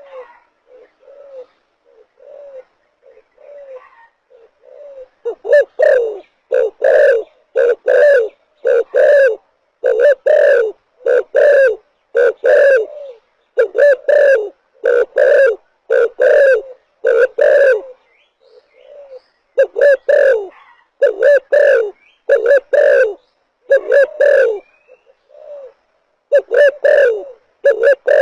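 Spotted dove cooing: soft, short coos for the first few seconds, then loud coos repeated in an even, steady rhythm of phrases.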